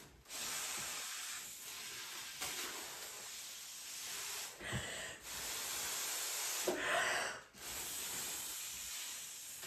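Air hissing as a person blows hard by mouth through a straw into the valve of a giant balloon to inflate it. It comes as three long blows, with two short breaks to take a breath between them.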